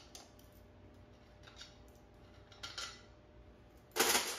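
Small metal parts and bolts clinking as they are handled during an engine teardown, a few light clicks about a second apart, then one louder, rough burst of noise lasting about half a second near the end.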